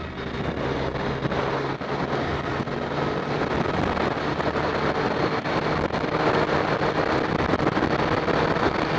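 Honda CBR1100XX Super Blackbird's inline-four engine running at highway speed under heavy wind noise on the microphone. The wind noise grows louder about three seconds in as the bike speeds up.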